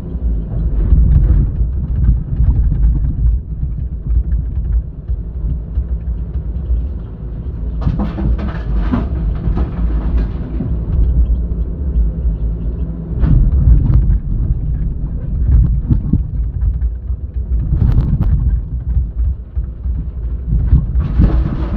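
Excavator's diesel engine running under load, a heavy steady rumble with several louder surges as it works loading a dump truck.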